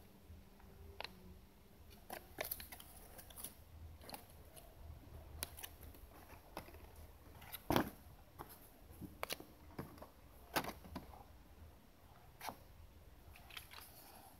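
Faint, scattered clicks and light rustles of hands handling a paper insert leaflet, small plastic toys and a plastic Kinder egg cup on a table. One sharper knock comes about eight seconds in.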